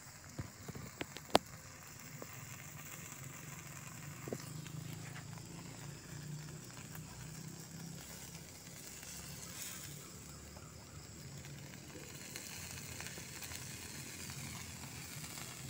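Small wood fire crackling under a wire grill, with a few sharp pops in the first couple of seconds and one more about four seconds in, then a steady low hiss.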